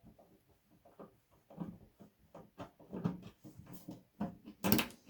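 Irregular light knocks and clicks from handling an IBM 5150 computer's case as it is taken apart, with one louder knock near the end.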